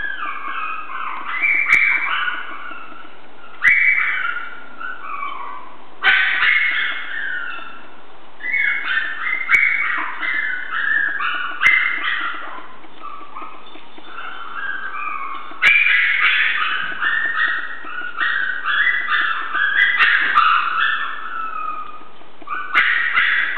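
A litter of eight-week-old Chihuahua puppies whining and yipping, runs of short high-pitched calls that start again every few seconds.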